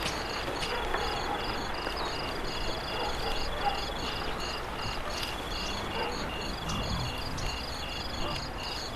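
Insects chirping in a steady chorus: several trains of short, evenly repeated high chirps at different pitches, over a constant low noisy rumble.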